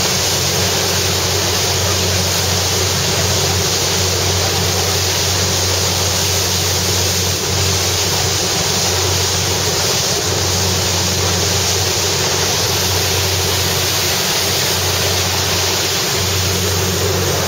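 Small passenger ferry underway: a steady low engine drone under a loud, even rush of water along the hull.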